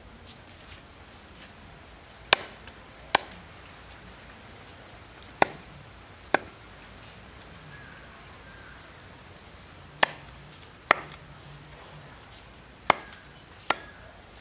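Knife chopping into a plucked duck carcass: eight sharp strikes, falling in pairs about a second apart with longer pauses between the pairs.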